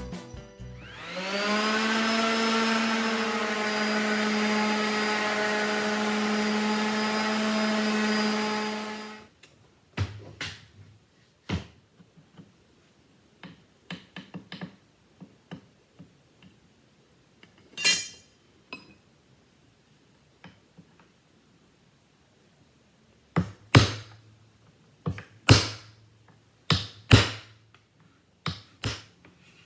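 An electric power tool's motor spinning up to speed, running steadily with a whine for about eight seconds, then stopping. After it come scattered knocks and clicks of workpieces and tools being handled.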